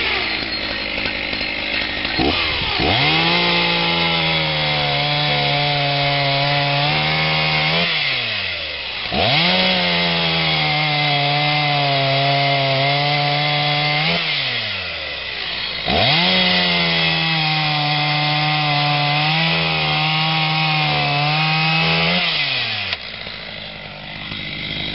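Chainsaw revved up and held at full throttle three times, each run lasting about five to six seconds, sawing through a log. At each start the pitch climbs quickly, and at each end it slides down as the throttle is let off.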